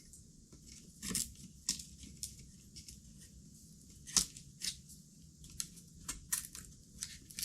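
Scattered light clicks and plastic handling noises as a DDR4 RAM stick is lined up and pushed into a motherboard memory slot, with one sharper click about four seconds in.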